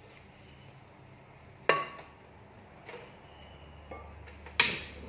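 Sharp clicks and knocks at a wok on a portable gas stove, two loud ones about three seconds apart with a brief ring and a couple of softer ones between, as the stove is being lit. A low steady hum sets in a little past halfway.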